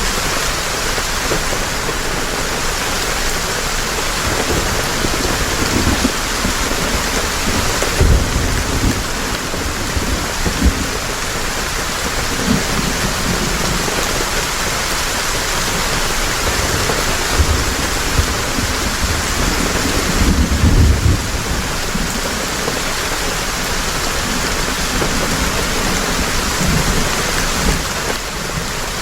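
Heavy rain falling steadily, with low rumbles of thunder rolling in about eight seconds in and again about twenty seconds in.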